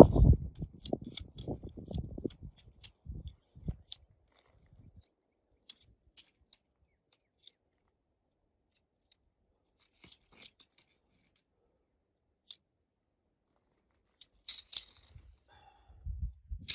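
Tent pole sections clicking together as the pole is assembled: a quick run of light clicks with handling rustle in the first few seconds, then scattered single clicks.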